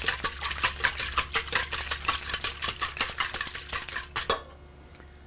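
Wire whisk beating eggs in a stainless steel mixing bowl, its wires clicking rapidly against the metal; the whisking stops a little after four seconds in.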